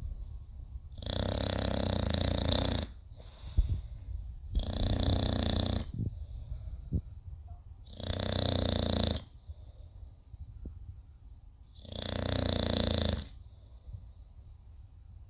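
English bulldog snoring in its sleep: four long snores, about one every three and a half seconds, each lasting a little over a second, with quieter breathing sounds between them. A brief sharp click a few seconds in.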